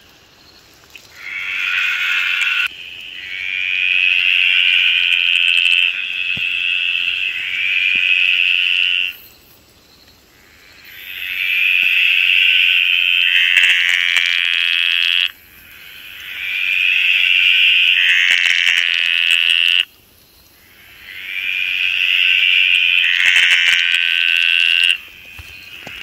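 Small tree frog calling close by, its throat sac puffing out with each call. The calls are loud, high and buzzing, each lasting a few seconds, with short pauses between them.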